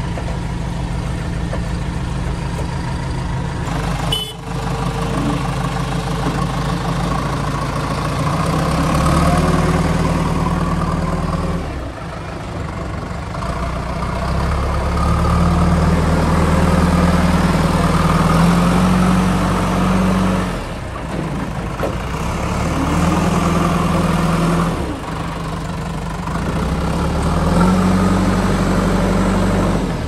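JCB backhoe loader's diesel engine running, its speed rising and dropping back several times as the machine works.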